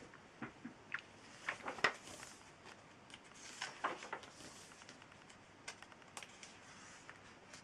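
Collaged paper pages of an altered book being handled and turned: scattered light taps and clicks with a few soft paper rustles.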